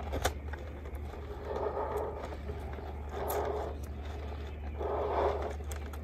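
Plastic armor and straps being handled while strap snaps are fastened: light scraping and a few faint clicks, with three soft swells of rustling about a second and a half apart.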